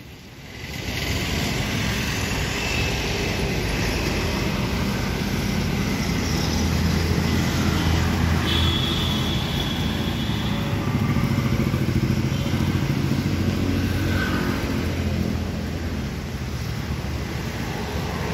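KTM Duke 390's single-cylinder engine idling steadily, louder for a while as the exhaust side comes close.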